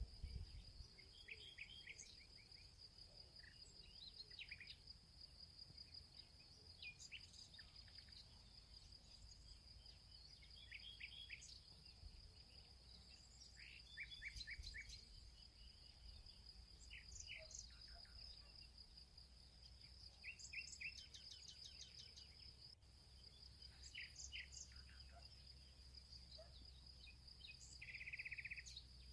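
Faint songbirds giving short chirps and brief trills every few seconds over a steady high-pitched insect buzz, with a denser trill near the end.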